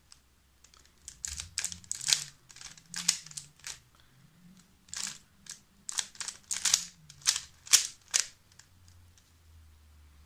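Magnetic 3x3 speed cube being turned by hand: quick runs of sharp plastic clicks and clacks as the layers snap into place, fading out about eight seconds in.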